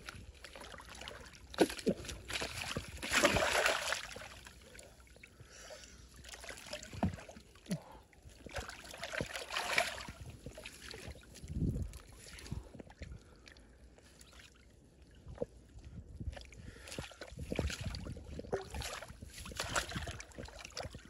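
Water sloshing and splashing in irregular bursts, with a few sharp knocks between them, as someone works by hand in a shallow stream.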